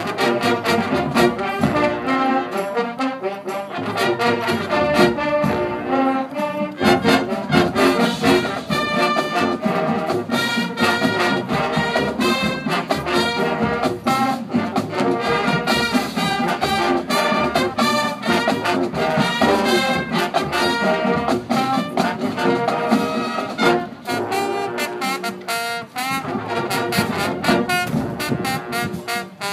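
High school marching band playing: a full brass section with percussion hits punctuating the music.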